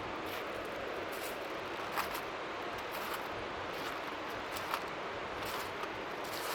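Steady rushing noise of strong wind on the shore, with faint waves lapping underneath, broken by a few short sharp clicks.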